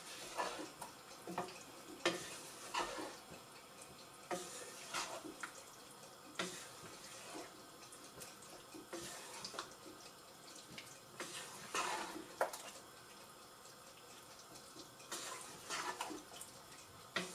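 Wooden spoon stirring a thick, wet vegetable stew in a pan: faint, irregular squelching scrapes and soft knocks against the pan.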